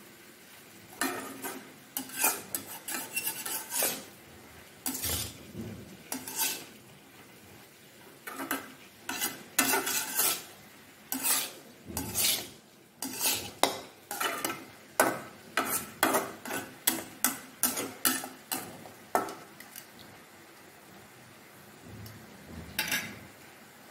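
Spatula stirring and tossing chopped water spinach in a metal wok, a run of quick scrapes against the pan. The strokes come in clusters, settling into about two a second before a short pause and one last scrape near the end.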